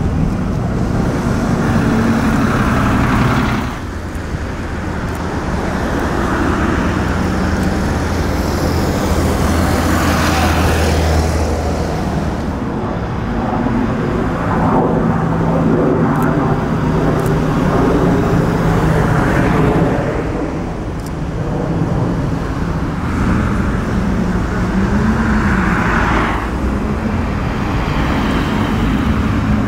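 Several cars passing one after another at low speed, their engines running with tyre and road noise, the sound changing abruptly about 4 and 20 seconds in. One engine rises and falls in pitch briefly near the end, a short rev.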